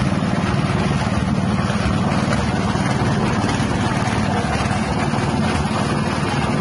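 Small single-cylinder 6.5 hp Mustang petrol engine running steadily at speed, belt-driving an empty grass chopper (mesin cacah rumput) before any grass is fed in.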